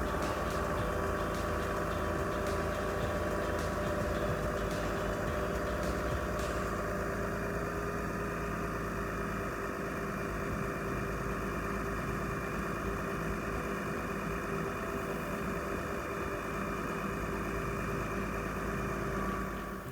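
A large engine idling steadily, with a few light clicks in the first several seconds.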